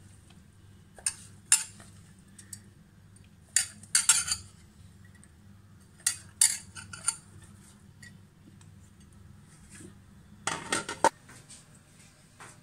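Intermittent metal clinks and scrapes, in scattered short clusters, of a steel mixer-grinder jar being emptied by hand: the coarsely crushed shallot, garlic, ginger and chilli mix scraped out against the jar's stainless-steel sides and blade.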